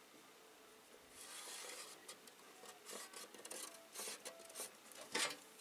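Marker pen scratching across sheet metal as a line is drawn along a speed square: one longer stroke about a second in, then a run of short strokes.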